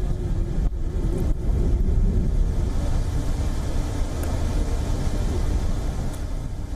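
Steady low rumble with a faint wavering engine hum, as of fire engines running at the roadside.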